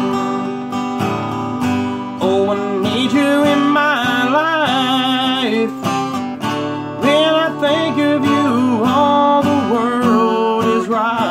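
Acoustic guitar strummed in a steady rhythm, with a man's voice singing long wavering notes over it.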